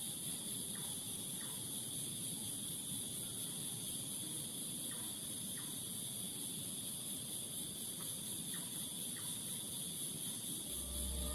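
Crickets and other night insects chirring steadily in two high bands. A few faint short ticks come in pairs, and a low hum with music comes in near the end.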